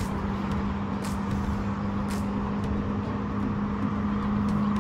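Steady road traffic noise from a nearby highway, with a constant low hum running under it.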